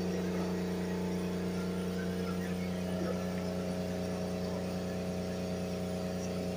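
A steady hum of several held low tones, with the higher tones shifting about three seconds in.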